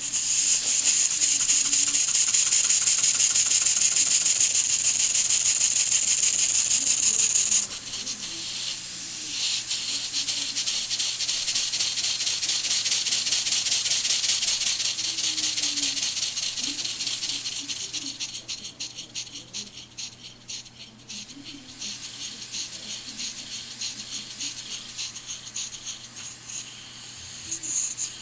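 Model Maudslay oscillating marine steam engine running fast: a rapid, hissing exhaust with a light mechanical rattle. The hiss is loudest at first, drops suddenly about a quarter of the way through, fades and slows in the middle, and picks up again near the end.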